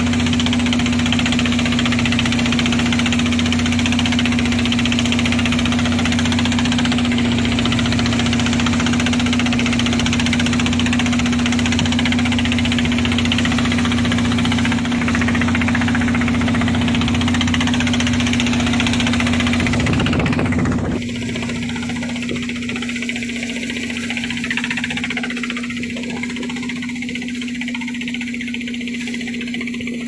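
A motor boat's engine running steadily with a constant low drone, under heavy wind and sea noise from rough water. The wind and water noise drops away suddenly about two-thirds of the way through while the engine drone carries on.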